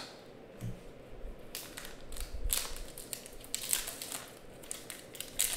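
Foil wrapper of a trading card pack being torn open by hand, crinkling and crackling in a run of sharp irregular crackles from about a second and a half in.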